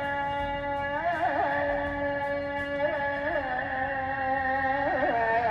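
Background music: long held, sliding melodic notes over a steady drone.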